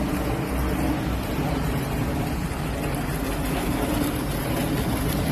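Fountain water spilling steadily down stone steps, a continuous splashing rush with a low rumble underneath.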